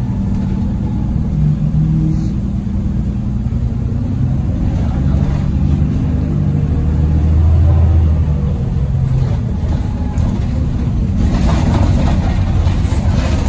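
Engine of an Alexander Dennis Enviro 400 double-decker bus heard from inside the passenger saloon as it drives and accelerates, the engine note rising and falling in steps and swelling about halfway through. A rushing hiss joins in near the end.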